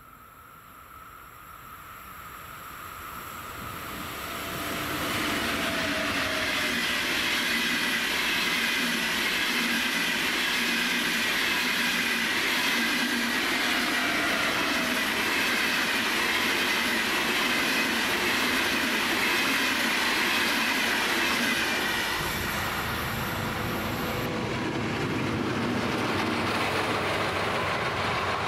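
ÖBB Class 1116 Taurus electric locomotive and a long double Railjet passenger train passing: the rumble of steel wheels on the rails swells over the first five seconds and then stays loud and steady. About 22 seconds in it gives way to the low drone of a DB Class 294 diesel locomotive running light toward the listener.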